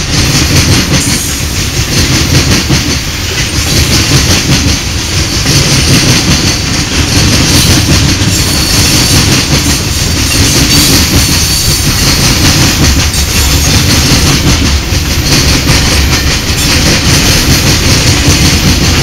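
Freight train's covered hopper cars rolling past close by: a steady, loud rumble and clatter of steel wheels on the rails.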